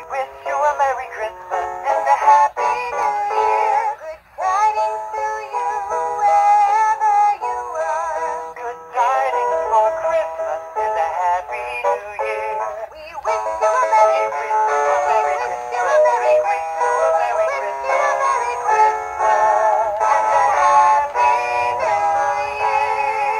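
Hallmark 2003 Caroling Snowmen plush toy singing a Christmas song through its built-in speaker, thin with little bass, with short breaks about 4 and 13 seconds in.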